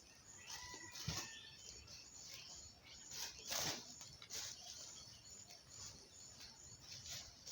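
Faint rural outdoor ambience with bird calls, including a brief held whistle-like call about half a second in, and scattered soft knocks or rustles.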